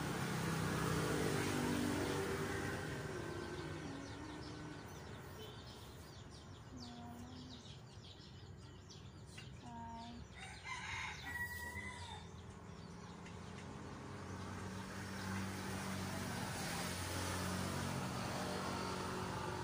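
A rooster crows about halfway through, over the steady hum of a motor vehicle's engine that swells near the start and again near the end.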